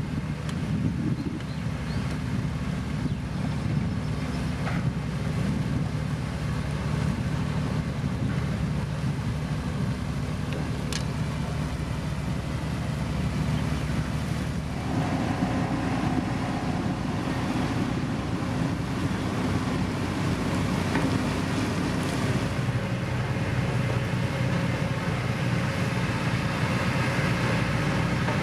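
Heavy road-construction machine's diesel engine running steadily at work, its note growing louder and fuller about halfway through.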